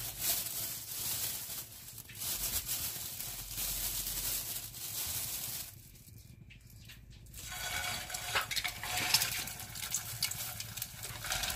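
Fish-paste cakes frying in hot oil in a frying pan, the oil crackling and spattering with many small pops. The sound dips briefly about six seconds in, then the crackling comes back sharper.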